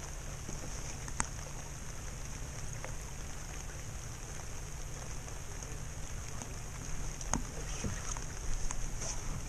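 Steady low rumble of wind and water around a small open boat on a river, with a few sharp clicks that come more often and louder near the end.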